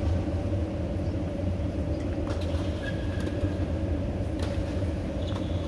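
Steady low rumble of a moving vehicle, with a few faint clicks and rattles.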